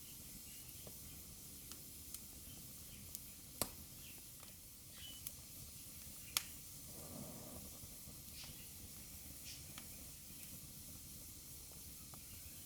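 Wood fire burning in a fireplace: a faint steady hiss with scattered crackles and sharp pops, the two loudest about three and a half and six and a half seconds in.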